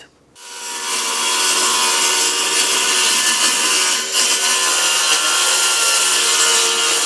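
Cordless circular saw cutting through a sheet of 1/4-inch plywood. It comes up to speed about half a second in and then runs steadily through the cut.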